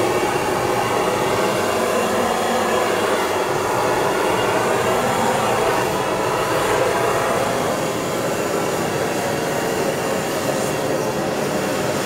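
Hand-held gas torch with a long wand burning steadily as its blue flame is played over stainless-steel sink panels and a steel frame, heating them for kosherization.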